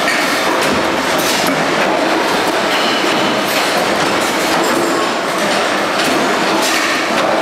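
Metalworking factory machinery running with a loud steady din and frequent metal clanks and clatter.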